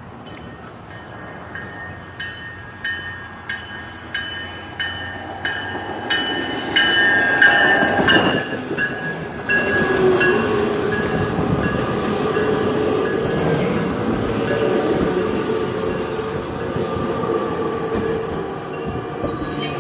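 Metra stainless-steel bi-level commuter train arriving at the platform. A bell rings in even strokes about one and a half times a second, growing louder as the train nears. About eight seconds in, the cars roll past with a loud rumble and long, gliding squeals from the wheels and brakes as the train slows to stop.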